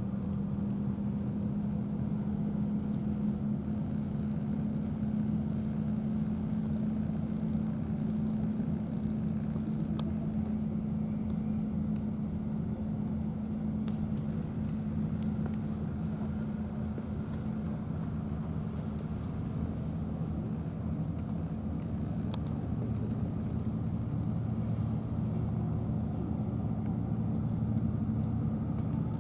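Steady low drone of distant motor vehicle engines, unchanging throughout.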